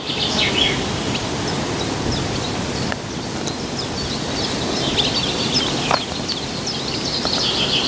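Outdoor ambience: a steady rushing noise with small birds chirping throughout, the chirping thicker near the end, and a couple of faint clicks.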